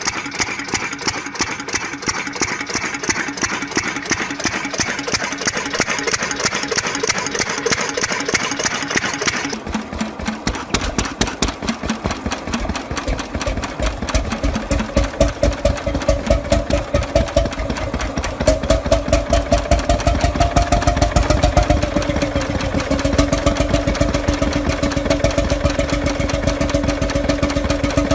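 Small 8 HP diesel engine running with a steady rattle. About nine seconds in, the sound changes abruptly to a lower, even chugging that picks up speed over roughly ten seconds before settling into a steady run.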